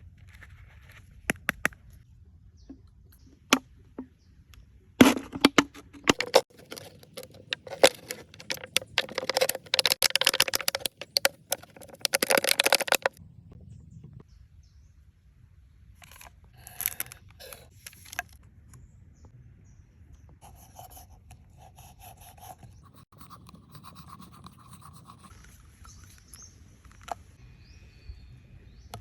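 Rapid clicks and scraping strokes, densest from about five to thirteen seconds in, then fainter scattered scratches.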